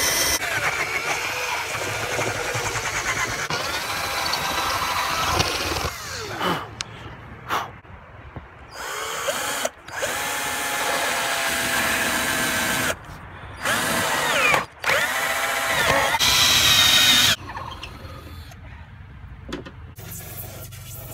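Cordless drill with a half-inch twist bit boring through a fiberglass roof, in several runs that stop and restart, its whine rising and falling in pitch with the trigger speed. These are the corner holes for a roof-vent cutout. The drilling stops a few seconds before the end.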